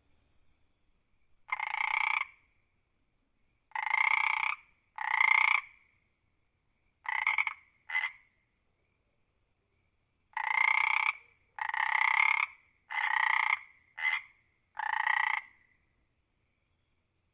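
A frog croaking: about ten separate calls, each lasting under a second, coming in uneven groups of two or three with short silences between.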